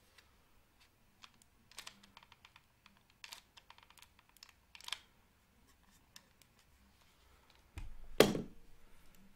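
Scattered faint clicks and taps as hands work a hot glue pen against the metal cup of a hair clip, with one louder knock about eight seconds in.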